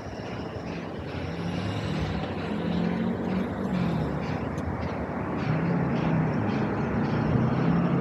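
Low rumble of a passing vehicle, with a few wavering engine tones, growing steadily louder.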